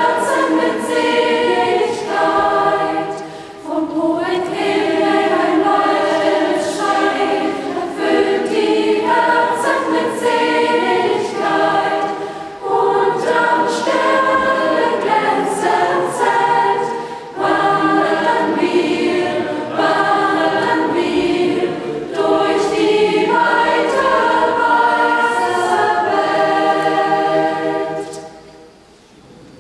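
A large mixed choir singing in phrases with short breaks between them; the song ends near the end, its last chord fading away.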